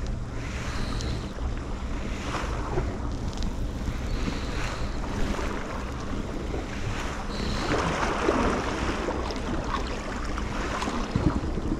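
Wind buffeting the microphone in a steady low rumble, with small waves lapping and washing against the rocks of a breakwater. The wash swells up around the middle of the stretch.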